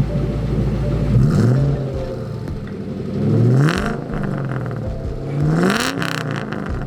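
Ford 4.6 L four-valve DOHC V8 in a Mustang GT, idling through a freshly welded exhaust, then revved three times, each rev rising in pitch and dropping back toward idle.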